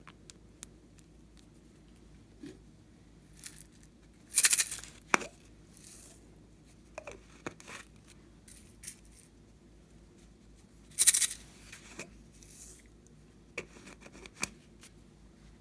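Hand-working of slime-making materials: scattered small clicks and taps, with two louder rasping, tearing sounds, about four and a half and eleven seconds in.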